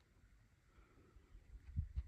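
Near silence, broken by a few faint, short low thumps starting about one and a half seconds in.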